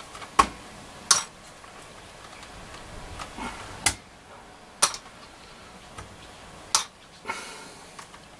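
Sharp, irregular clicks and knocks as chrome push-on control knobs are worked off a transistor radio's top panel by hand, about five in all, with a short rustle of handling near the end.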